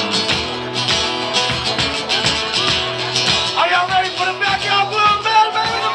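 A live acoustic duo: an acoustic guitar strummed with a drum kit keeping a steady beat. A higher melody line joins about three and a half seconds in.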